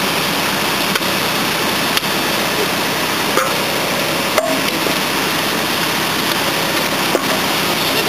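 Asphalt paver's diesel engine running steadily, with a handful of short, sharp knocks scattered through it.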